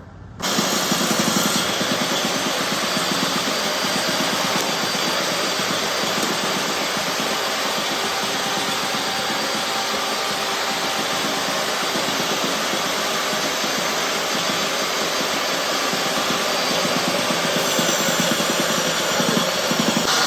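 Electric power tool running steadily, switching on abruptly about half a second in, a little louder near the end.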